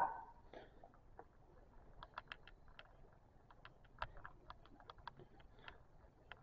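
Faint, irregular light clicks and ticks of small hard objects being handled, several a second, starting about two seconds in.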